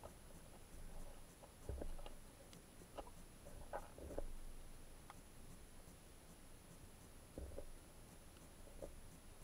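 Faint underwater sound heard through a sealed action-camera housing: a handful of scattered, muffled knocks and scrapes, with a few fainter ticks between them.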